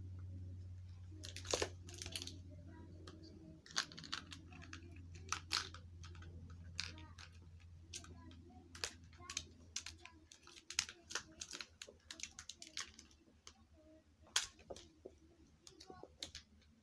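Large-billed crow's bill pecking and prying at a plastic tape dispenser: irregular clicks, taps and scrapes. A low steady hum sits underneath and fades away about halfway through.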